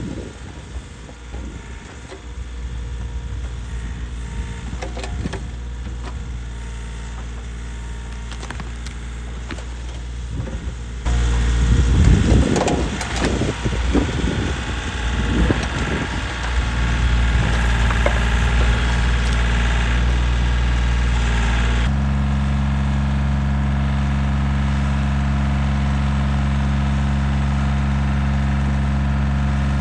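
Kioti compact tractor's diesel engine running while it digs out a stump. The sound changes abruptly twice; it is loudest and most uneven in the middle stretch and settles to a steady hum near the end.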